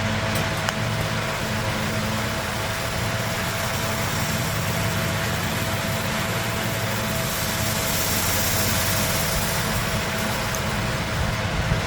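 Steady machine hum with a constant mid-pitched tone over low rumbling and hiss, unchanging throughout.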